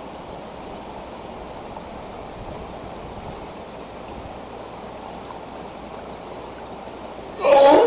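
Steady rushing of running water. Near the end comes a sudden loud call with several pitched tones, lasting about a second: an unidentified animal sound.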